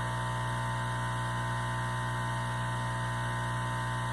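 Yaxun 702 hot-air rework station's air pump running at maximum air flow during its cool-down after switch-off: a steady, very noisy hum that gives little air.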